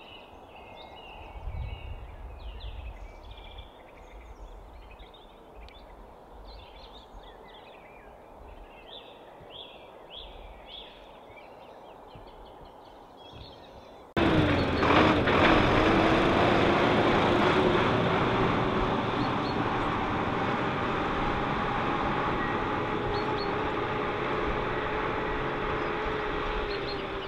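Small birds chirping and singing rapidly over a faint low rumble. About halfway through, the sound cuts abruptly to a loud, steady engine noise with a constant hum.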